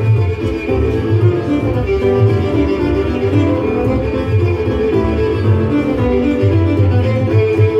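Scottish country dance music with fiddle and other bowed strings over a steady, regular bass beat.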